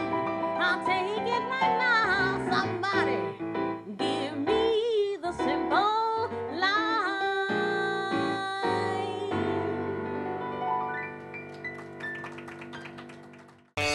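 A female singer performing a New Orleans-style jazz song with a Roland electric keyboard. The voice sings through the first half, then the closing keyboard chords ring on and fade out near the end.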